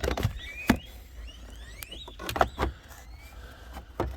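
Several sharp clicks and knocks of hard plastic steering-column trim being handled and set in place over a new turn-signal switch, the loudest about a second in. A few faint short rising chirps sound in the background around two seconds in.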